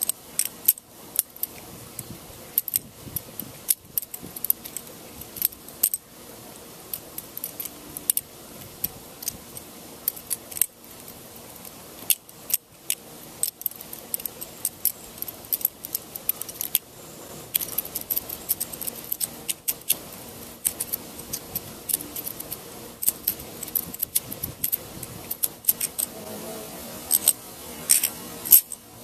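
Balisong (butterfly knife) being flipped: sharp metallic clicks and clacks as the handles and blade swing around their pivots and strike one another, in quick irregular runs with short pauses, over a steady faint hiss.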